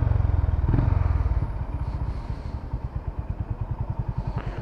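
Honda CB350RS's single-cylinder engine dropping in revs and settling into idle, its exhaust thumping in a slow, even beat. There is a brief click near the end.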